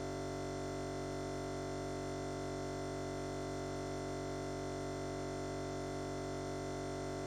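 A steady, unchanging electronic drone made of many fixed tones, with no rise, fall or break.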